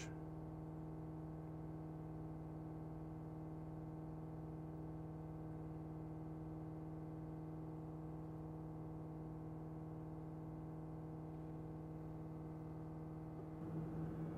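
Ford 6.7 Powerstroke V8 turbodiesel held at a steady fast idle of about 2,400 rpm, an even drone that gets a little louder near the end. The engine is being held up in revs to heat the exhaust and clear a forced-idle exhaust fluid system fault.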